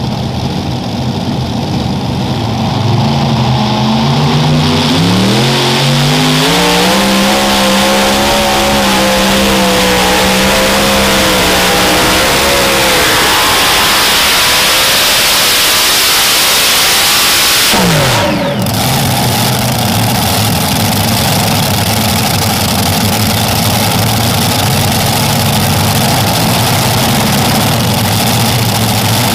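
Alcohol-burning multi-engine super modified pulling tractor making a full pull. The engines climb in pitch as it launches a few seconds in and hold a steady high run. About two-thirds of the way through they drop away sharply as the throttle is let off, then keep running at a lower steady level.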